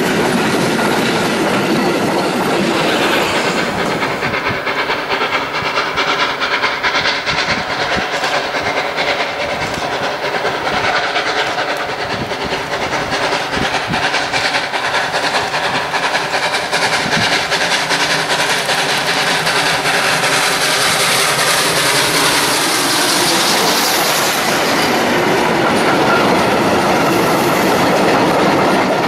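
Train running on rails: a steady clickety-clack of wheels over rail joints, with steady tones through the middle of the run.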